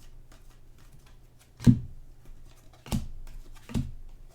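Trading cards being handled and flicked through by hand, with faint paper clicks and three sharp taps about a second apart.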